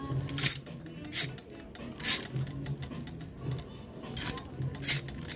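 A series of sharp clicks, roughly every three-quarters of a second, over faint background music and voices.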